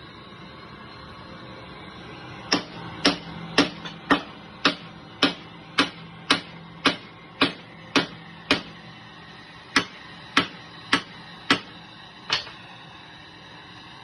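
A hammer striking metal in a steady rhythm, about two blows a second, some seventeen in all, with one short pause partway through.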